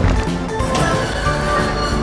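Background music with held notes, and a short crash right at the start.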